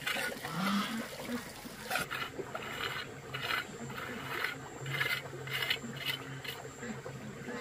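Steel pointing trowel scraping and smoothing wet mortar along a row of bricks in short strokes about twice a second, over a faint trickle of running water.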